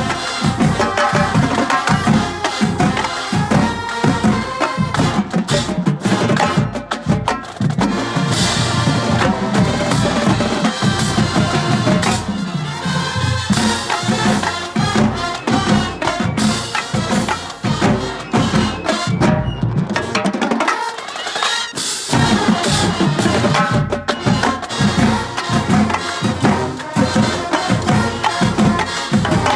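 College marching drumline playing a fast cadence: snare drums, tenor drums and bass drums striking in tight rhythm. The low drums drop out for about two seconds around twenty seconds in, then come back.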